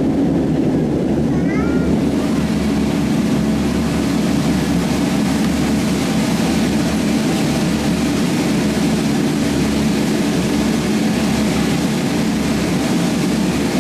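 Propeller airliner's engines running at a steady drone, heard from inside the small cabin.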